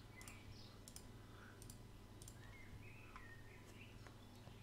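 Several faint computer mouse clicks over a low steady hum.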